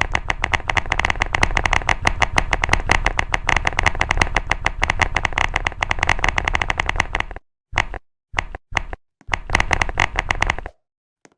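Rapid typing on a computer keyboard: a dense, continuous run of key clicks. After about seven seconds it breaks into a few short bursts with abrupt dead silences between them, and it stops shortly before the end.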